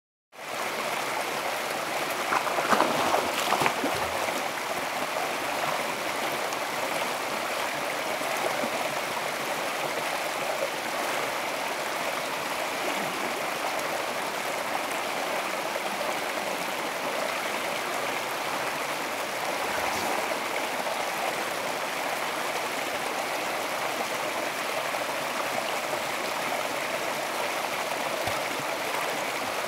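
Rocky mountain stream running over a small cascade into a pool: a steady rush of water, briefly louder about two to four seconds in.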